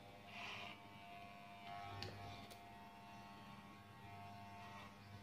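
Wahl corded electric hair clipper with a comb guard running with a faint steady buzz as it is drawn through the hair, with a couple of brief scratchier moments.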